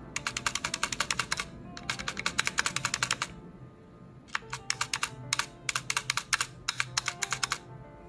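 Kodessa KDA61 60% mechanical keyboard with Kailh Brown switches being typed on quickly, in three bursts of rapid key clicks with short pauses between.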